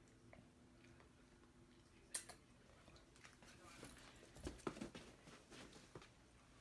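Faint quick clicking and tapping of a dog's claws on a tile floor as it gets up and walks across, with one sharper click about two seconds in.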